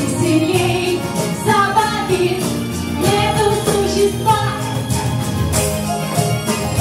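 Girls and a woman singing a song with piano accompaniment, with a jingling percussion running along with the music.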